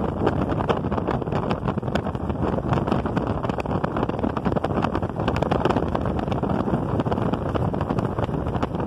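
Wind rushing over the microphone over the steady running noise of a vehicle travelling on a dirt road, with many small clicks and knocks throughout.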